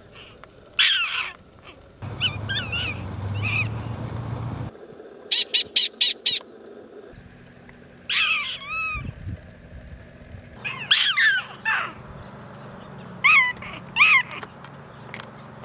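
Prairie dogs calling in several bouts of short, sharp, high-pitched calls, including a quick run of about six evenly spaced calls midway. A low rumble, like wind on the microphone, sits under the first few seconds.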